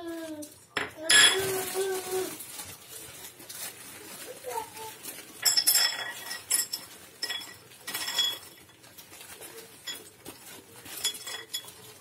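Plastic bag of peanuts crinkling and rustling as the nuts are tipped out onto a ceramic saucer, with light clinks and clatter of nuts landing on the plate. About a second in, a short, high, wavering cry is louder than the rest.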